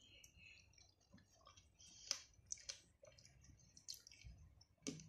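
Several faint, short clicks and soft squishes of a wooden spoon stirring banana slices and pomegranate arils in a bowl.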